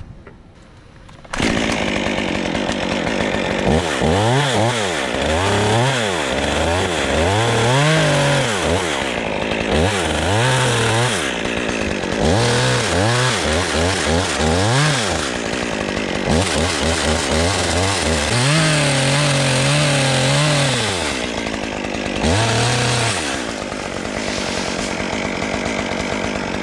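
A chainsaw starts up about a second in and runs, revving up and down over and over as it works on a limb, with one longer steady high-rev stretch near the middle.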